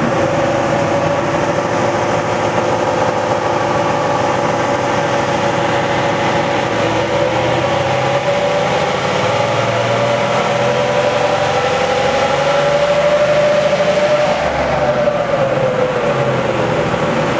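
Toyota 79 series Landcruiser's 4.5-litre V8 turbo-diesel running under load on a chassis dyno, its note climbing slowly in pitch and then easing back down about fourteen seconds in.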